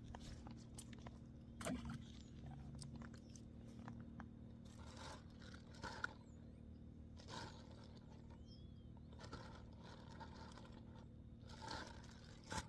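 Faint scraping and crunching noises in short irregular bursts, with a few sharp clicks, over a low steady background hum.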